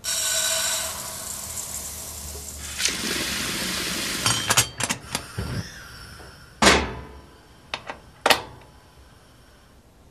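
Kitchen sounds: water rushing from a tap into a pot, easing off after a couple of seconds, then a run of small clicks and two sharp metal clunks of cookware being set on a gas hob.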